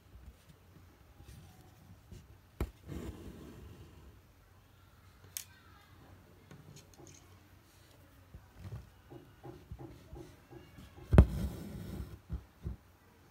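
A needle and embroidery floss being worked through fabric: small taps and soft rasps as the thread is pulled through and drawn tight. The loudest is a sharp pop followed by a rasp about eleven seconds in, as the needle and thread come up through the fabric.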